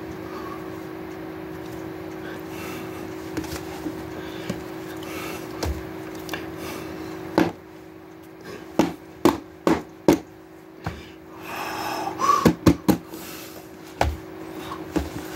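A Bible being handled close to the microphone: a string of sharp knocks and taps, most of them in the second half, with a short rustle around twelve seconds in, over a steady low hum.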